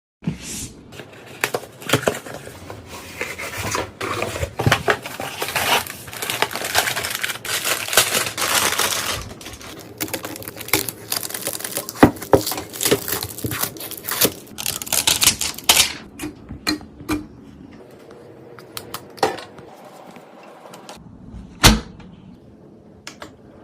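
Hands handling and fitting computer hardware: a dense run of small clicks, taps and plastic rustling that thins out about two-thirds of the way through into scattered single clicks, with one louder sharp knock near the end.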